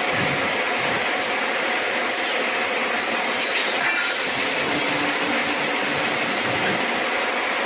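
Automatic welding machine for ringlock scaffolding poles running: a steady, even mechanical noise with a few faint high squeals.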